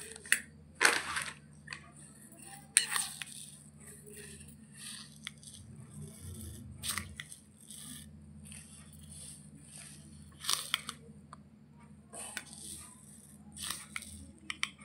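A steel spoon stirring and scooping dry raw basmati rice in a steel bowl, the grains rattling and scraping against the metal in a series of short, sharp bursts. A low steady hum runs underneath.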